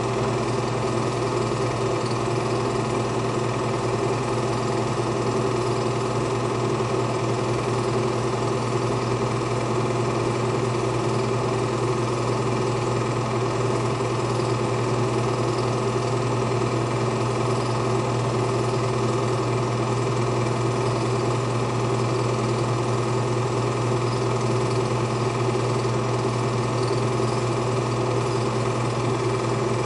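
Film projector running steadily while a silent home-movie reel plays, its motor and film transport making a constant mechanical whirr.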